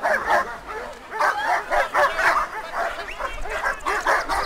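A dog barking and yelping repeatedly in short calls.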